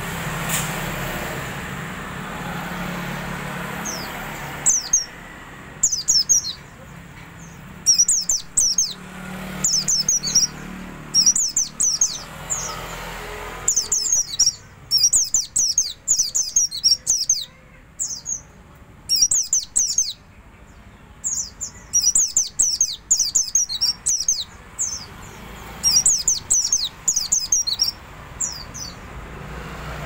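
Caged omyokan songbird twittering ('ngeriwik'): quick runs of thin, high chirps in bursts every second or two, over steady road-traffic noise.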